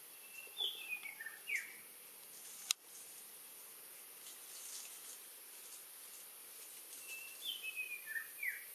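A bird sings a short phrase of several quick notes stepping down in pitch, twice: about a second in and again near the end. A steady high insect hum runs underneath, and a single sharp click comes a little under three seconds in.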